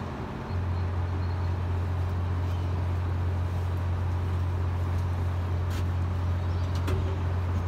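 A crane's engine running with a steady low drone that sets in about half a second in and holds, while the suspended excavator load is lowered.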